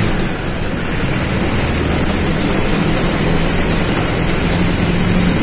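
City bus under way, heard from inside: the engine runs with a shifting low note under a steady rush of road and wind noise.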